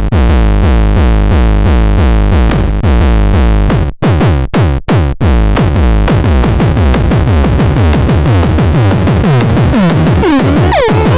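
Electronic music from the Bumtron Mini: a fast, steady pulse of synth blips that each drop in pitch, with a few brief cut-outs about four seconds in. Near the end, swooping chirps that rise and fall take over.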